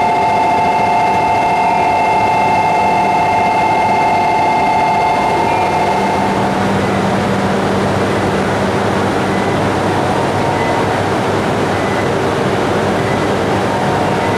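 E5 and E3 series shinkansen trains standing at a station platform: a steady electrical whine and blower hum from the idling trains over steady station noise. The whine fades out about six seconds in.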